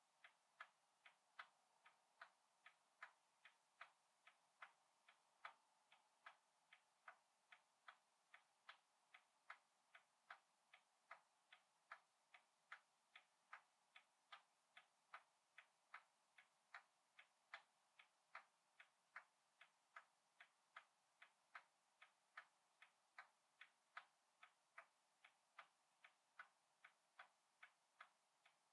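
Faint, steady ticking, about two ticks a second, even and unbroken like a clock.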